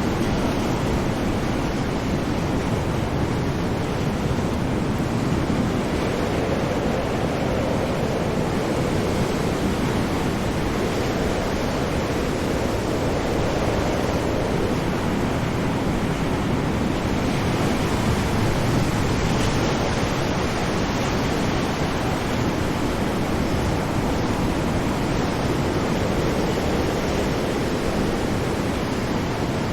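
Ocean surf: waves breaking in a dense, steady wash of noise, with little rise and fall.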